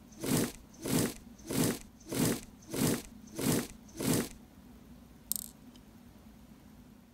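Miniature spoon mixing mashed potato salad with mayonnaise in a tiny glass bowl: seven even stirring strokes about two-thirds of a second apart, then a single light click about five seconds in as the spoon is set down.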